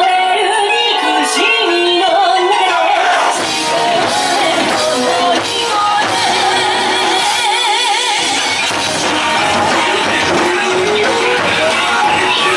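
Loud music with a singing voice, from the Robot Restaurant's live show, or laid over the vlog.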